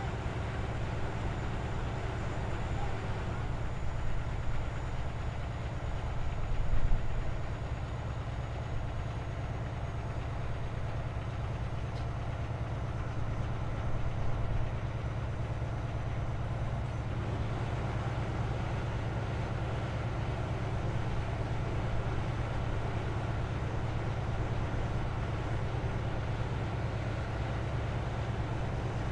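Heavy truck's diesel engine running steadily with a low drone, swelling briefly louder about seven seconds in.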